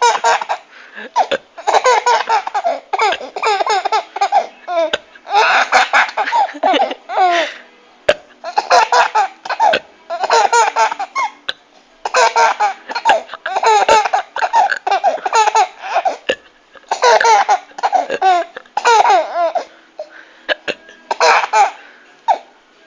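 Hearty laughter in about eight long fits separated by short pauses.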